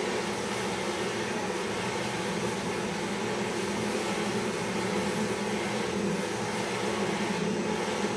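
Handheld butane gas torch burning steadily, its flame playing on the small metal pot of a traditional popcorn machine to heat it.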